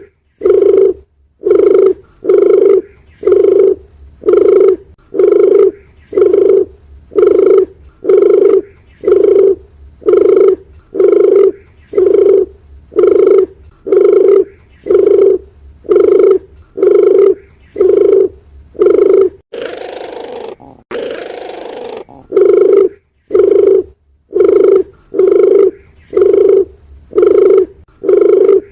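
Dove cooing: a low hoot repeated evenly about once a second, broken near two-thirds of the way through by two short bursts of hiss.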